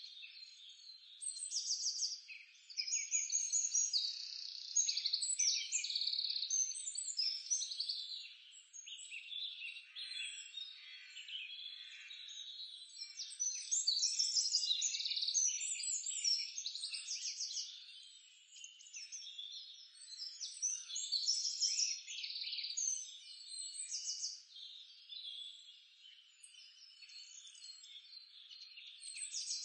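Oil sizzling and crackling around bell pepper rings stuffed with glutinous rice flour batter frying in a miniature clay pan, swelling and fading in intensity.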